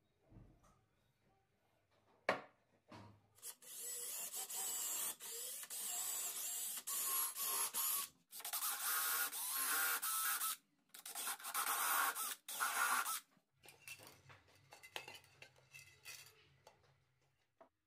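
Makita cordless drill running in several bursts with short pauses, drilling into a plywood edge. A single sharp knock comes shortly before it, and fainter handling knocks follow near the end.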